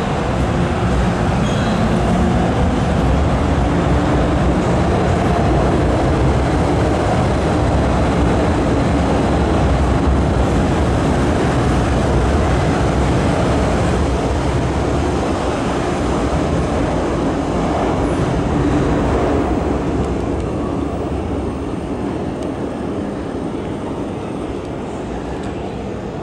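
An MTR M-Train electric multiple unit rolls through an underground station without stopping, a steady rumble of wheels and motors behind platform screen doors. It fades away over the last several seconds as the train leaves.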